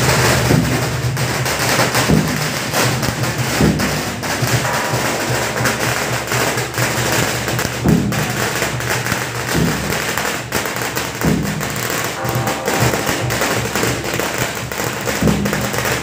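Chinese procession percussion: a deep drum struck irregularly, about every one to two seconds, over a continuous clatter of sharp cracks.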